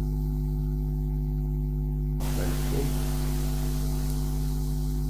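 Steady electrical mains hum on the recording, with a hiss that comes up about two seconds in and a few faint short sounds just after.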